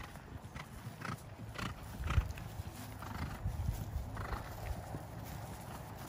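Hoofbeats of a horse cantering on grass, dull strikes about twice a second.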